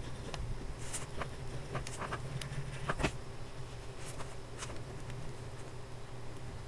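Fine black steel nib of a copper ēnsso XS pocket fountain pen writing on paper: faint, irregular scratches and light taps of the pen strokes, over a low steady hum.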